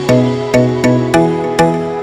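Background music: an electronic track of short, sharp-edged pitched notes in a steady rhythm, about five notes in two seconds.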